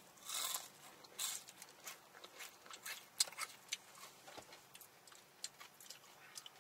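A mouthful of crunchy breaded fried chicken being chewed close to the microphone: a few loud crunches in the first second and a half, then softer, irregular crunching and mouth clicks.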